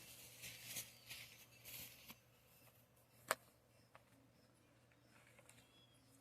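Near silence with faint rustling early on and one sharp click a little past the middle.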